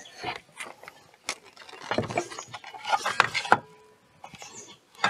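Scattered clicks, knocks and scrapes of a circular saw and wooden floorboards being handled and set in place. The saw is not heard running.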